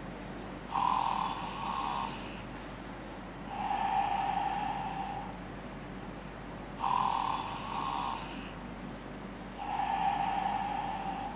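Teddy bear giving off a snoring sound: two slow, evenly repeating snore cycles, each a harsher, higher snore followed about two seconds later by a lower, smoother one, coming round about every six seconds.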